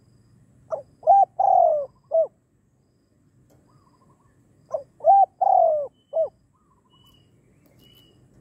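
Spotted dove cooing twice, each phrase four notes: two short coos, a longer falling coo and a short closing one, a few seconds apart. Faint high peeps follow near the end.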